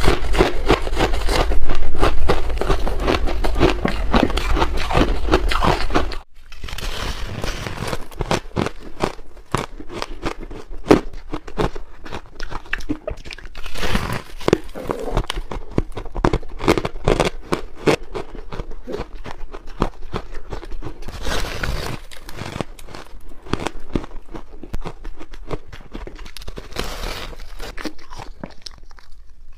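Close-up biting and crunching of powdery ice, a dense, rapid crunching. About six seconds in it cuts abruptly to quieter, sparser bites and crunches that come in bursts.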